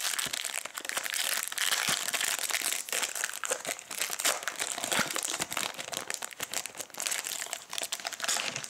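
Foil wrapper of a football trading-card pack being crinkled and pulled open by hand, a continuous irregular crackling of the metallic foil.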